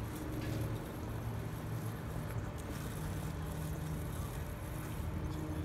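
Robotic lawn mower running across grass: a steady motor hum with a few held low tones, one of which shifts in pitch about halfway through.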